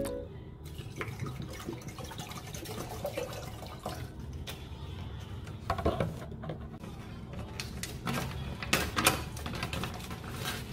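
Water poured from a plastic bottle into an empty cooking pot, followed by a few light knocks and the rustle of a plastic pouch being handled, over a low steady hum.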